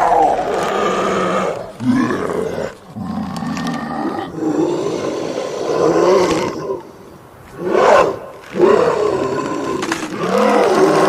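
Werewolf transformation sound effect: a run of loud animal-like growls and roars with short breaks between them, and a sharp, loud roar about eight seconds in.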